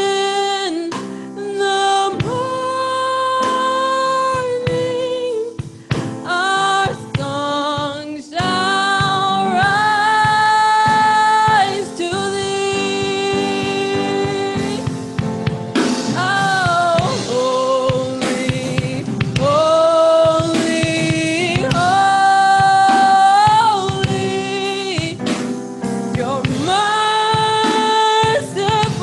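Gospel worship singing with a backing band: a lead singer holds long, sliding notes over steady keyboard chords.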